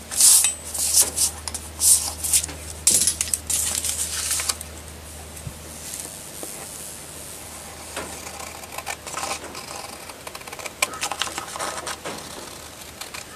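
Sheet of craft paper being handled and cut with scissors: a run of sharp, crisp rustles and snips in the first few seconds, then quieter, scattered cutting strokes. A low rumble of wind on the microphone sits under the first half.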